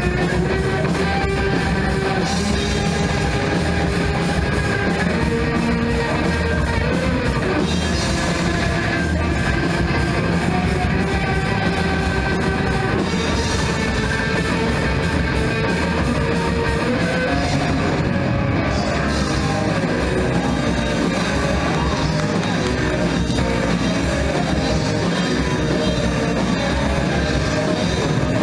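Live rock band playing at a steady loud level: electric guitars and a drum kit.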